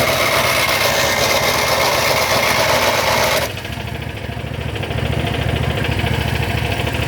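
Lawn tractor starter cranking with a high whine over a small engine idling. The cranking cuts off suddenly about three and a half seconds in without the tractor's engine catching, while the idling engine runs on. This is a warmed-up John Deere GT225 that won't start.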